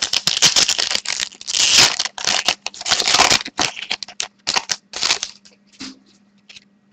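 Foil trading-card pack wrapper being torn open and crinkled: a dense crackling rustle for about five seconds, then a few light clicks.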